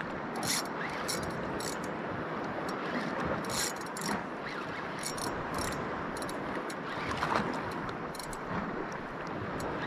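Steady rush of wind and water, broken by short, high-pitched rasps from a spinning reel as the angler fights a hooked giant trevally.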